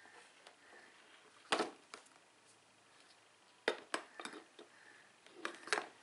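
Knocks and clinks of a plastic drip coffee maker and its glass carafe being handled and set down on a table. The loudest knock comes about a second and a half in, then a cluster of lighter clicks and knocks, and two more near the end.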